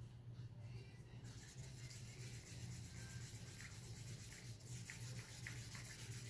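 Faint rubbing and scraping of a stick stirring thin acrylic pour paint in a cup, with a few light ticks later on, over a low steady hum.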